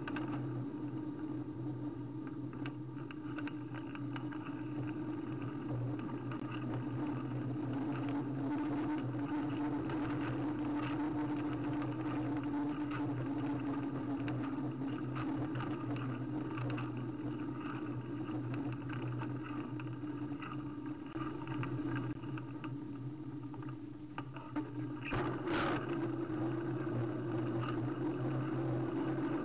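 Riding noise picked up by a camera mounted on a moving bicycle: a steady hum with small knocks and rattles as it rolls over rough, cracked pavement. About 25 seconds in there is a brief louder burst of noise.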